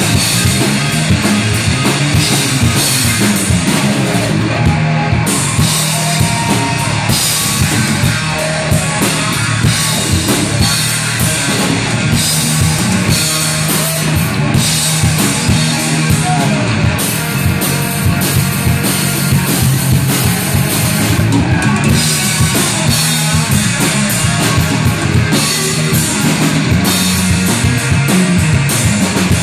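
Live rock band playing: a Stratocaster-style electric guitar over a drum kit, loud and without a break.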